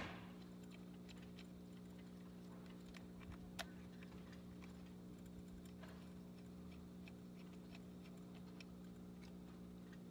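Faint small clicks and ticks of an Allen wrench and metal parts on the top cap of a Paslode pneumatic stapler as the cap screws are worked, with one sharper click about three and a half seconds in, over a steady low hum.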